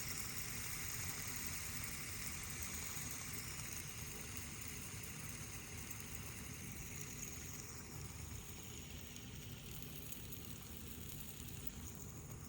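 Fidget spinner spinning, a steady whir with a faint high ringing tone, slowly fading as it loses speed.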